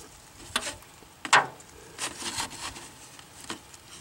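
A used flux brush set down on an aluminum boat hull and a new one picked up: a few light clicks and knocks, the loudest about a second and a half in with a short ring, then scraping and rustling as the fresh brush works into the epoxy putty on cardboard.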